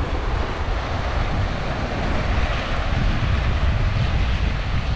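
Small waves washing over a flat rock shelf and shallow shore, with a steady rumbling of wind on the microphone underneath.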